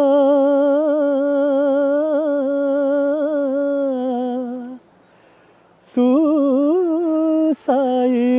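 A solo voice singing a Nepali folk song unaccompanied, drawing out one long wavering note for about four and a half seconds. After a pause of about a second it takes up the next sung phrase.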